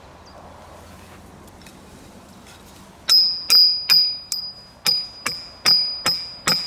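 Hammer striking the top of a steel pipe, driving it into sand: a steady run of sharp metallic clangs with a high ringing tone, about two or three a second, starting about three seconds in.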